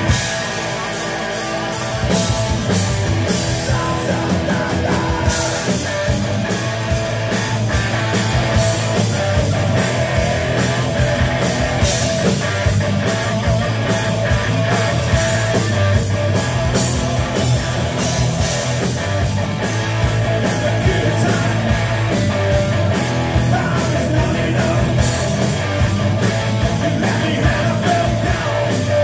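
A rock band playing live at full volume, with drums beating steadily under dense amplified instruments; the sound steps up about two seconds in as the whole band comes in.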